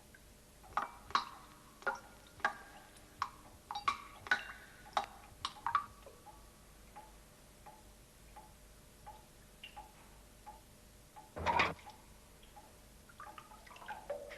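Rainwater dripping from a leaking church roof. A quick, irregular run of sharp, ringing plinks at different pitches comes in the first six seconds, followed by fainter drips evenly spaced about two a second. One louder noise lasting about half a second comes about eleven and a half seconds in.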